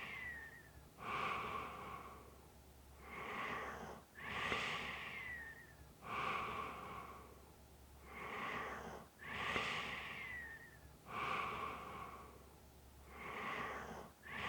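A person snoring in slow, even breaths, about three full breath cycles. A light whistle slides down in pitch at the end of every other swell.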